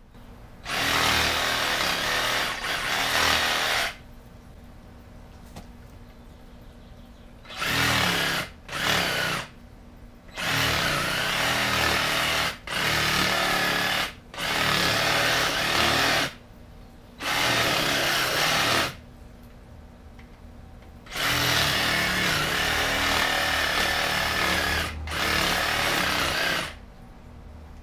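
DeWalt cordless reciprocating saw with a 12-inch wood-cutting blade cutting through bush roots in the soil. It runs in about nine bursts of one to four seconds each, stopping and starting between cuts.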